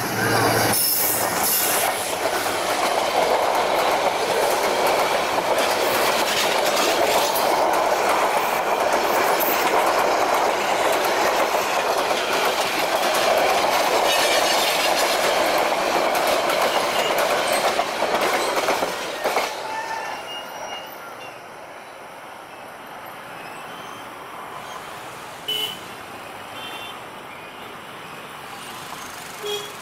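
Meter-gauge passenger train with a GT38ACL diesel locomotive passing at speed: the locomotive goes by at the start, then the coaches' wheels rumble past loudly on the rails. About nineteen seconds in the sound drops to the much quieter noise of the receding train.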